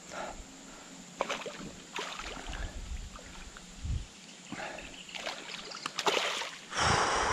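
A hooked bass splashing and thrashing at the surface of shallow river water, in several short bursts, the biggest splash near the end.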